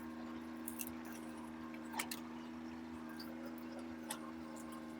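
Mini excavator's diesel engine running with a steady hum, with a few sharp clicks or knocks about a second, two seconds and four seconds in.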